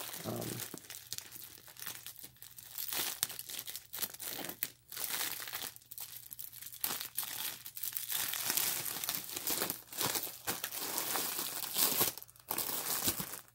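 Clear plastic wrapping crinkling in irregular bursts as it is handled around a rolled diamond-painting canvas.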